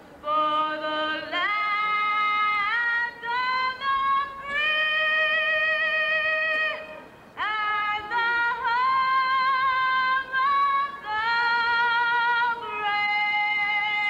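A slow live melody of long held notes on an electronic keyboard, several notes sliding up into pitch, with short pauses between phrases.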